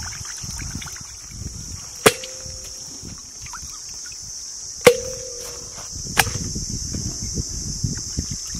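A stainless steel bowl knocked three times, sharply; after the first two knocks the bowl rings briefly. A steady, high insect buzz runs behind.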